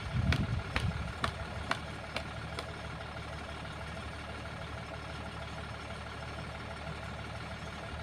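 Excavator's diesel engine running steadily at low revs, with a brief low swell about half a second in. A run of sharp clicks, about two a second, fades out over the first couple of seconds.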